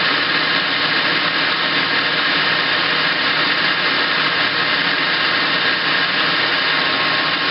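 Metal lathe running steadily with a few faint held tones, its cutter turning down the diameter of a stud in a deep pass of about 100 thousandths.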